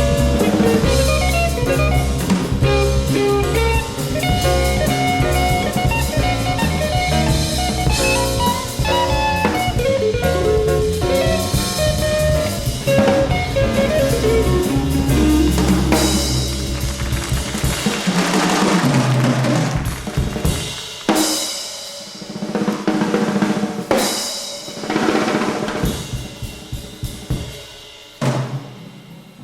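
Live jazz quartet with electric guitar, taped off an FM broadcast: double bass and guitar play over the drums, then about eighteen seconds in the other instruments drop out and the drum kit plays alone, snare, bass drum and cymbals.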